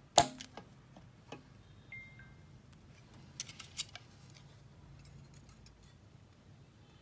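Small handling sounds at a battery spot welder: a sharp snap just after the start, lighter clicks of nickel strip and cell being positioned, a short high beep about two seconds in, and a pair of louder clicks near the middle.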